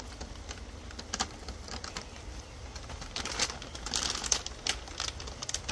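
Foil pouch crinkling and rustling with scattered clicks as powder is shaken out of it into a plastic sprayer tank, the busiest crinkling about three to five seconds in.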